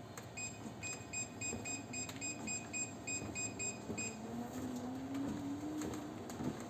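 Mi Walking Pad R1 Pro walking treadmill beeping: a quick run of short, high, identical beeps, about three a second, that stops about four seconds in. After that its motor hum rises in pitch as the belt speeds up.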